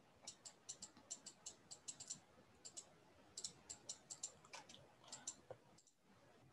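Faint, irregular light clicks of a stylus tapping on a pen tablet while handwriting, a couple of dozen taps, stopping about five and a half seconds in.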